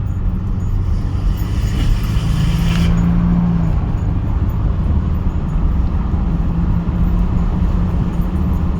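2019 Ford Raptor driving with the windows down: steady road and drivetrain rumble with a hum, and an intermittent grinding noise that comes and goes. New actuators, brakes, rotors and vacuum lines have not cured the grinding.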